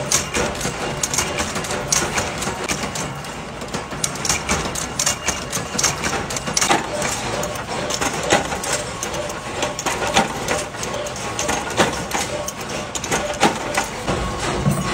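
Mechanical power presses stamping metal key and lock blanks: a busy, uneven run of sharp metallic clanks and knocks over steady workshop machine noise.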